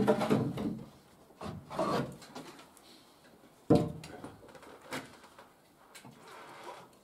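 Timber stair boards knocking and scraping against each other and the wall as they are shifted into position, with a sharp knock a little under four seconds in.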